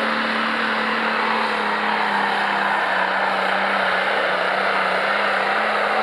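Turbocharged diesel engine of a John Deere Pro Stock pulling tractor running flat out under full load as it drags the weight sled. It holds one loud, steady engine note.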